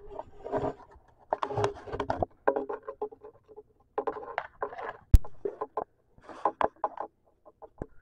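A cat handling a dead small songbird on a wooden floor: repeated scraping and scuffling, mixed with short pitched animal calls, and one sharp knock about five seconds in.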